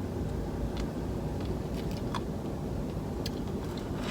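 Steady low hum of a car's interior, with a few faint, short clicks and mouth sounds of eating ice cream.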